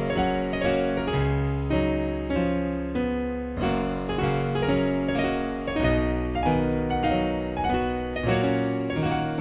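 Background music: solo piano playing a melody, notes struck about every two-thirds of a second and each dying away.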